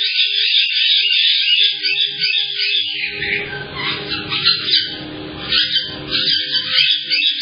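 A flock of caique parrots calling non-stop: a dense run of high whistles, chirps and squawks. A stretch of lower rustling and knocking comes in about halfway through.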